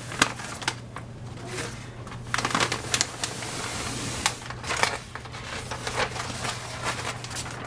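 Backing being peeled off a peel-and-stick adhesive sheet: crackly rustling with many sharp clicks, busiest in the middle, over a steady low hum.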